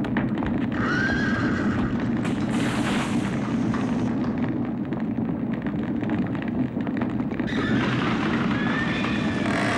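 Horses whinnying in alarm, once about a second in and again repeatedly from about two-thirds of the way through, over the steady roar of a stable fire.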